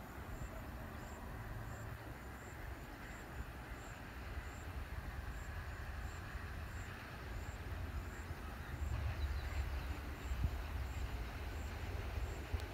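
Sri Lanka Railways M6 diesel-electric locomotive approaching from a distance: a low rumble that grows louder in the last few seconds. A faint high chirp repeats about twice a second throughout.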